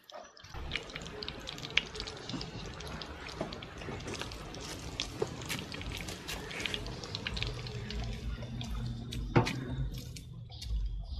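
Breadcrumb-coated chicken cutlets deep-frying in hot oil in a metal pot: a steady sizzle with constant crackling pops, and one sharper click near the end.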